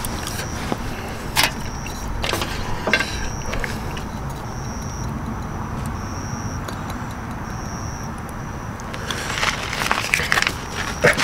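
A few sharp clinks and knocks of a glass soju bottle and tableware on a metal tray, over a steady outdoor background noise, with a high thin trill coming and going in short stretches in the middle.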